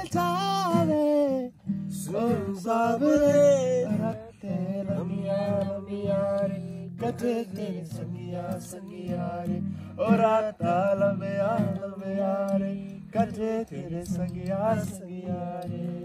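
Acoustic guitar strummed as accompaniment to singing, the voice carrying sung phrases with brief breaks between them.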